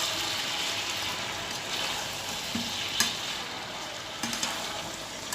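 Chicken pieces, onion and ginger-garlic paste sizzling in hot oil in a kadhai on high flame while being stirred, a steady frying hiss. One sharp knock about three seconds in.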